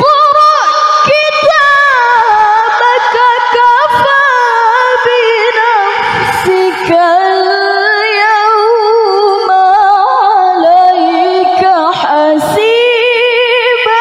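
A woman's high, melodious voice reciting the Quran in the ornamented tilawah style into a microphone. She draws out long held notes with wavering melismatic turns.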